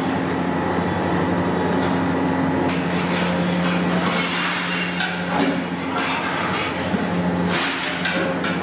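A metal ladle scraping and knocking against a large iron kadai while fried fish pieces in gravy are stirred, with a few sharper clanks, one a little past the middle and one near the end, over a steady low kitchen hum.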